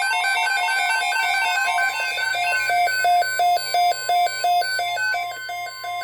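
Electronic weather-alert tones: rapid repeating beeps at several pitches, settling to about three a second, over a faint steady tone, signalling an emergency weather broadcast about to begin.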